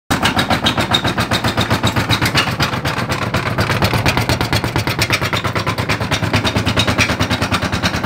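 Arçelik front-loading washing machine spinning, its drum knocking against the cabinet in a rapid, even rhythm of about eight knocks a second over the motor's hum. The drum has dropped after its suspension spring mount tore.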